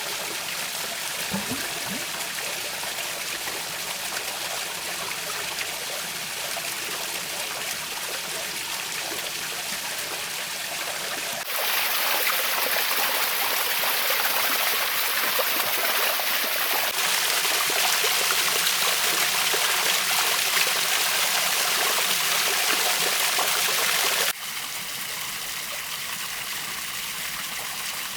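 Water trickling and splashing down a small artificial stone waterfall into a pond, a steady flowing sound. It jumps abruptly louder and hissier about eleven seconds in and drops back about twenty-four seconds in.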